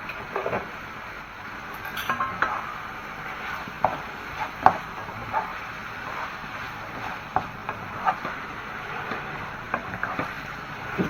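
Frog pieces being stir-fried: a spatula scrapes and knocks against the pan in irregular clicks about once a second, over a steady sizzle of frying.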